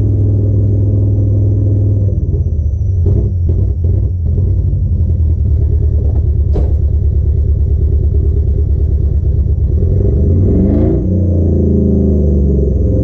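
A Nissan Patrol winch truck's LS1 V8 engine running at idle. From about two seconds in it turns uneven and pulsing, with a few sharp clicks. Near the end it revs up once and drops back to idle.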